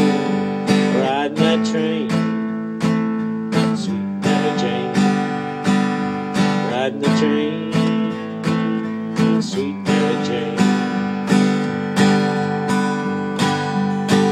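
Acoustic guitar strummed in a steady rhythm, about two strums a second, playing an instrumental break between sung verses.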